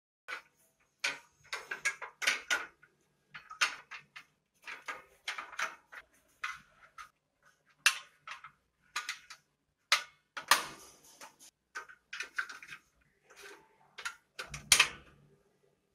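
Irregular clicks, clinks and knocks of IKEA ALGOT steel brackets and a wire shoe organizer being unhooked from and fitted back into the slots of a wall upright. The loudest clatters come about two-thirds of the way in and near the end.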